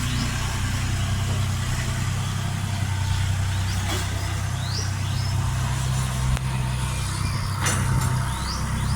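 John Deere tractor's diesel engine running steadily at a constant speed, with short high rising chirps every few seconds over it.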